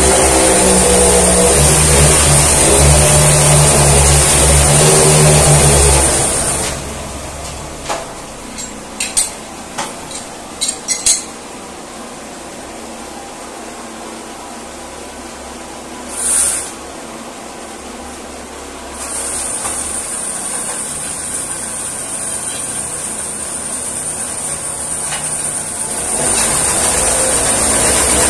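Horizontal drilling rig's motor running steadily as the drill rod bores into the rock face, then cutting out about six seconds in. A few sharp metallic clanks of steel drill rods being handled follow. The motor starts again quietly near the end of the first two-thirds and runs louder over the last couple of seconds.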